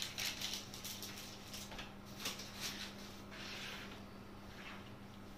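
Hands working flour into a soft margarine-and-yogurt dough in a plastic bowl: faint, irregular rustling strokes, over a low steady hum.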